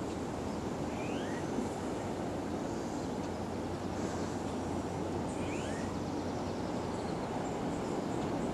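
Steady outdoor rushing noise with no one speaking. A small creature's short rising chirp comes twice, each time as a quick pair of upward notes.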